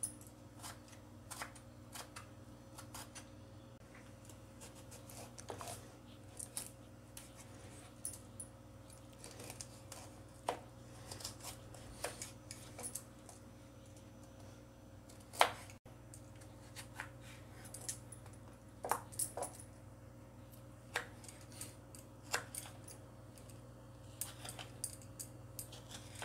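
Kitchen knife dicing bell pepper, carrot and tomato on a wooden cutting board: irregular light taps of the blade on the board, with one louder knock about halfway through. A steady low hum runs underneath.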